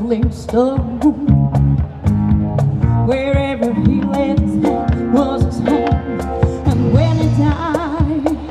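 A woman singing into a microphone with a live band behind her, bass and drums keeping a steady beat.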